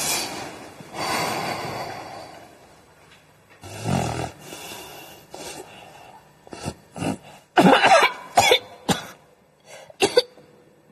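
A sleeping person breathing heavily, with a low snore about four seconds in, then a cluster of short coughs and splutters in the second half.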